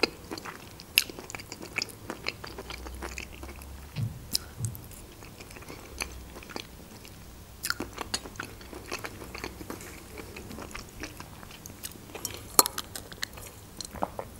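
Close-miked chewing of soft creamy champignon mushrooms, with many irregular wet mouth clicks and a few sharper clicks.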